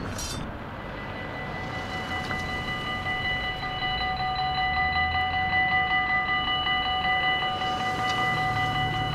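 Dutch level-crossing warning bell starting to ring about two seconds in and ringing on with a slight pulse, the signal that a train is approaching and the barriers are about to lower. Car engines run underneath as traffic clears the crossing.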